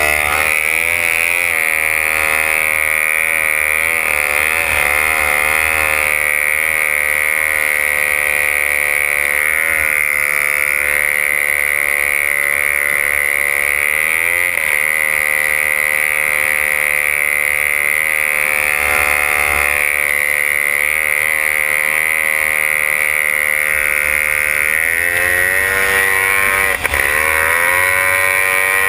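Racing runabout's outboard engine running hard at racing speed, heard from aboard the boat. Its high pitch wavers up and down every few seconds as the hull bounces and turns, with one brief dip near the end.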